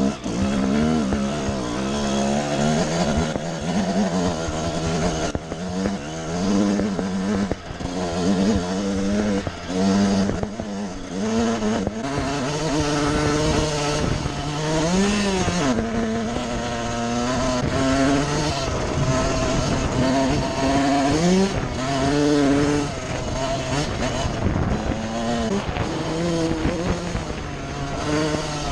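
1999 Suzuki RM125's single-cylinder two-stroke engine revving up and dropping back over and over, its pitch climbing and falling with each burst of throttle.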